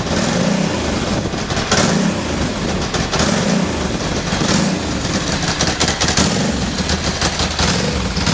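Ducati Multistrada 1000's air-cooled L-twin engine running, its note swelling and easing back every second or so.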